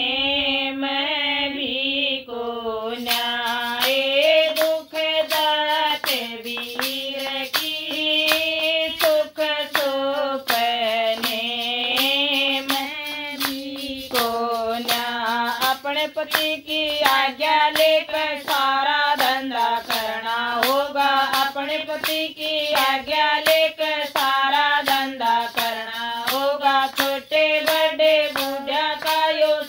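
A woman sings a Haryanvi folk song in a high voice with no instruments. Steady hand clapping joins about three seconds in and keeps a regular beat.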